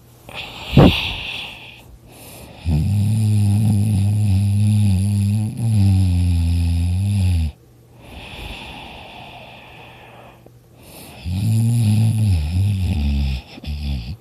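A person snoring loudly: one long snore of about five seconds, a quieter breath, then a second, shorter snore breaking into a few short snorts near the end. A sharp knock sounds just under a second in.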